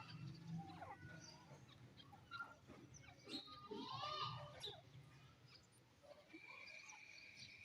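Faint, scattered bird chirps and calls, the loudest a short call about four seconds in. A steady, high, whistle-like tone starts about six seconds in.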